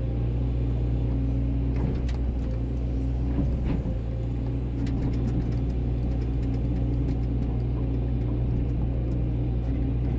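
Volvo EC140DL hydraulic excavator's diesel engine running steadily under working load, heard from inside the cab, while the bucket digs the trench and the machine swings to dump the soil; a few light knocks come through during the first half.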